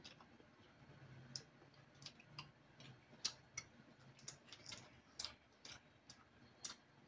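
Faint, irregular small clicks and crackles of eating by hand: chewing, and fingers pulling apart crisp-fried fish over a plate.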